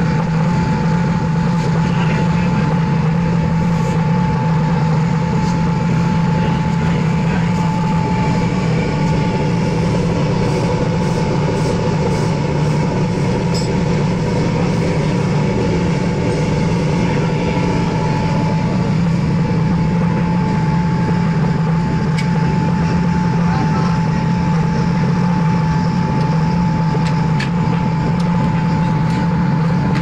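Brass-melting pit furnace running with an even, loud roar, a steady low hum and a constant high whine. Faint metallic clinks of brass scrap come and go around the middle.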